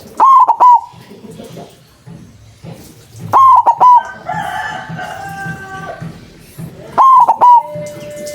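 White zebra dove (perkutut) cooing: three loud phrases of a few quick notes each, about three and a half seconds apart.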